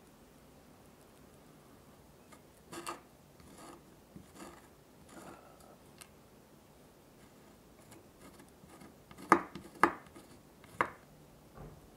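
Knife blade scraping the seeds out of a split vanilla bean against a wooden cutting board: a few soft scrapes, then three sharper, louder strokes near the end.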